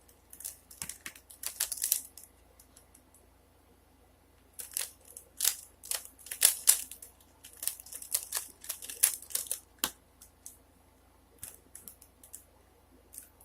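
A 3x3x3 Rubik's cube being turned by hand: quick flurries of plastic clicking as the layers are twisted, with a pause of a couple of seconds after the first flurry and only scattered clicks near the end.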